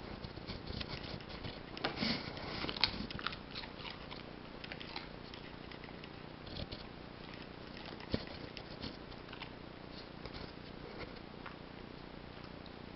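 A four-month-old Belgian Shepherd mix puppy crunching a raw carrot: a dense run of crisp crunches in the first few seconds, then only scattered crunches and clicks.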